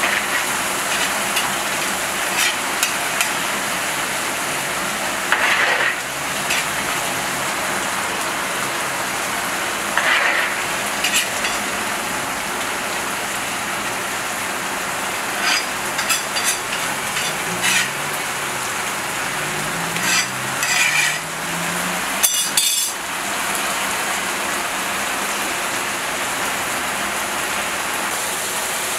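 Rice for plov sizzling steadily in a large kazan cauldron, its liquid boiling off. Scattered scrapes and clicks of a metal skimmer against the cauldron and rice come as the cook stirs and levels it, with the busiest clicking about two thirds of the way through.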